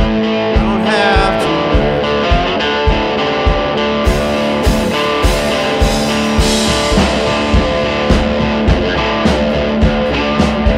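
Rock song with guitar over a steady drum beat.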